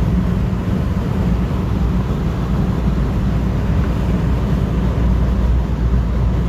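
1972 Chevrolet Nova cruising at speed, heard from inside the cabin: a steady, loud low rumble of engine, exhaust and road noise.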